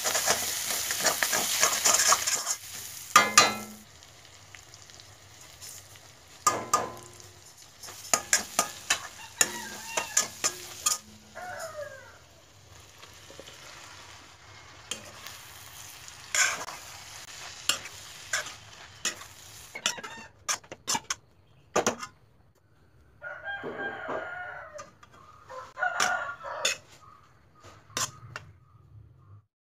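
Scrambled egg and vegetables sizzling loudly in a wok as a spatula stirs them. After about three seconds the sizzle drops away, and the rest is scattered sharp scrapes and knocks of the spatula against the wok as noodles are tossed in. A few pitched calls sound in the background later on.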